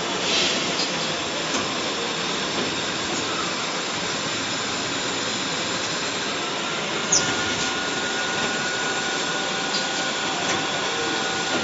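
Lanson high-speed IML hydraulic injection moulding machine running through its cycles: a steady mechanical noise with a few short, sharp hisses, the loudest about seven seconds in. A faint steady high hum comes in about six and a half seconds in.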